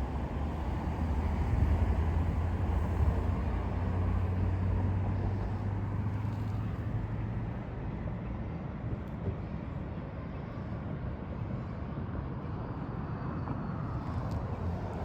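Street traffic: the low engine drone of a nearby motor vehicle, loudest in the first half and fading away after about seven seconds, over a steady background rumble of road traffic.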